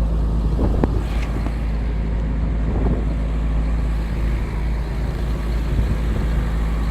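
A heavy vehicle's engine running steadily, a constant low drone heard from inside the cab, with a few faint clicks about a second in.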